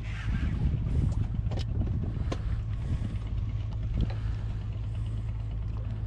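Boat engine running at idle, a steady low hum, with a few sharp clicks and knocks over it.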